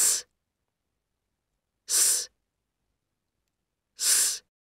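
A person making the voiceless /s/ sound three times, about two seconds apart. Each is a short hiss of air over the tongue and teeth, with no voice behind it.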